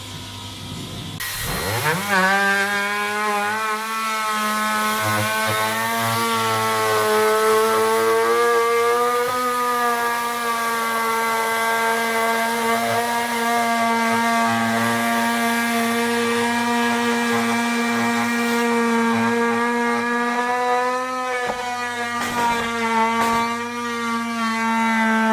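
Makita oscillating multi-tool spinning up about a second in, then running with a steady buzz as its blade cuts into a veneered wood panel, the pitch wavering slightly as the blade loads. A few light knocks sound near the end.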